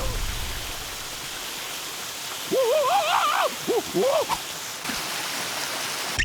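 A steady rushing noise, like running water or heavy rain, in a cartoon soundtrack. A character's wordless, warbling voice rises and falls over it from about two and a half seconds in, followed by two shorter cries.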